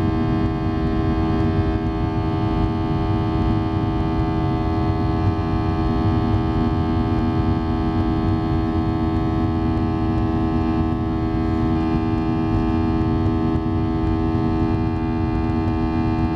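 Boeing 737-800's CFM56-7B turbofan engine at climb thrust, heard inside the cabin over the wing just after takeoff. It makes a steady drone of several held tones over a rushing noise.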